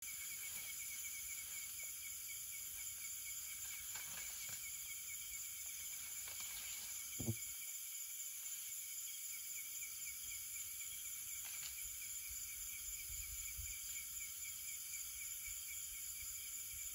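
Steady night chorus of crickets and other insects, a high-pitched pulsing trill, with one short sharp knock about seven seconds in.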